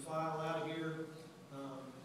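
A man's voice holding one long drawn-out, chant-like syllable at a steady pitch, then a shorter one about one and a half seconds in.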